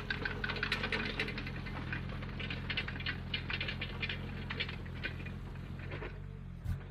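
Diesel engine of a tracked earthmoving machine running steadily, with rapid clicking and clatter over it that stops about six seconds in.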